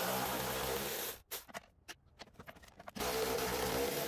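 Cordless power ratchet spinning out the 15 mm bolts of a strut's upper mount, in two runs of just over a second each, the second starting about three seconds in.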